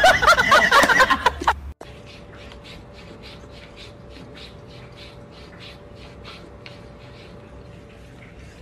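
Kitten lapping water from a drinking glass: quick soft laps, about three to four a second. It comes in after a brief loud wavering sound at the start.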